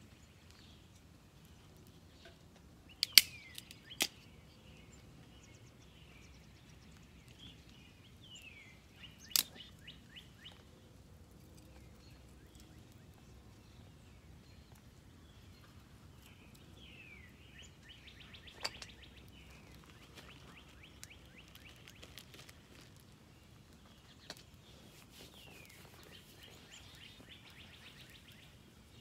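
Songbirds chirping and trilling, with short falling calls and two longer trilled passages in the second half. A few sharp snaps stand out, the loudest about three, four and nine seconds in, as small twigs are broken to feed a small campfire.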